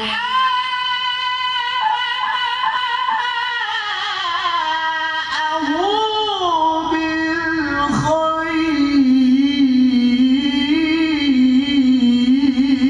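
Male Quran reciter chanting in the melodic mujawwad style, drawing out long ornamented notes whose pitch glides and wavers. There is a brief break about eight seconds in, then another long wavering held note.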